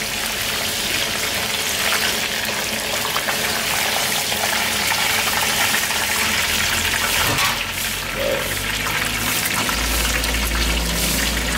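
Meat frying in hot oil, a steady sizzling hiss; a low hum joins near the end.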